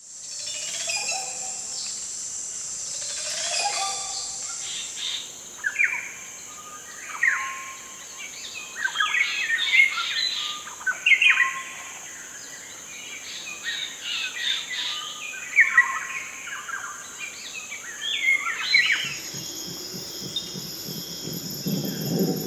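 A wild soundscape of several birds calling and chirping in short phrases over a steady high-pitched insect drone. About nineteen seconds in, the drone changes and a low rumbling sound comes in.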